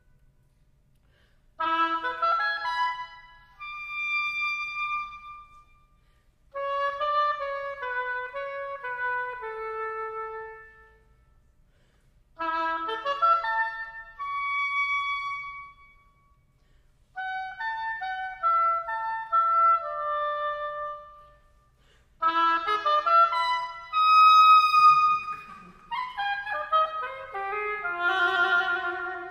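Unaccompanied solo clarinet playing a melody in six short phrases, each separated by a pause of about a second, with the line climbing higher and growing louder in the last few seconds.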